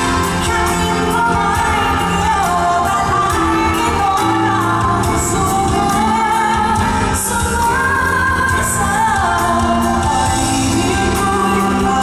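A woman singing a pop song live into a microphone, with long held notes that slide between pitches, over band accompaniment with keyboard and light cymbal.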